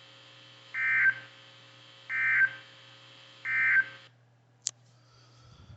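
NOAA Weather Radio SAME end-of-message code: three short two-tone data bursts about a second apart, sent to mark the end of the alert, over a steady electrical hum. About four seconds in, the receiver's audio cuts off, and a sharp click follows.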